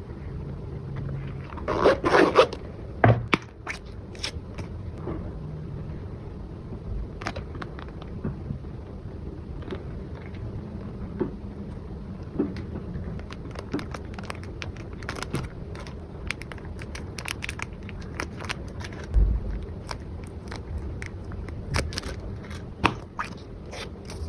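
Packaging being handled and opened, with scattered scrapes, crackles and clicks. There is a louder rustling burst about two seconds in and a low thump about three quarters of the way through.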